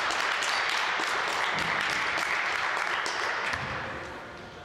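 Spectators clapping in a gym, a dense patter of many hands that dies away about three and a half seconds in.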